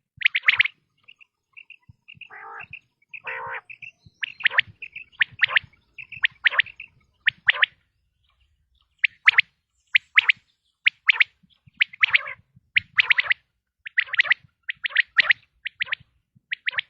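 Male common quail calling: short, sharp, high notes in quick groups of two or three, repeated about once a second, with a couple of lower, rougher notes about two to three seconds in.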